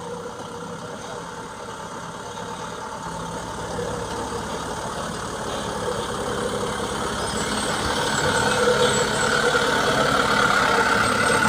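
Heavy diesel engine running and growing steadily louder, with a low throbbing that comes in about three seconds in.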